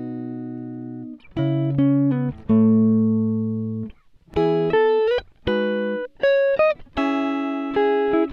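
Background music: a series of plucked guitar chords, each starting sharply and left to ring, some cut off short, with brief gaps between them.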